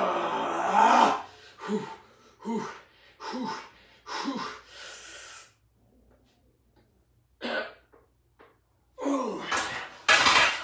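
A man straining and breathing hard through incline barbell bench press reps. A long groaning exhale is followed by four short, sharp breaths about a second apart, then a louder strained groan near the end and a sharp clank as the barbell is racked.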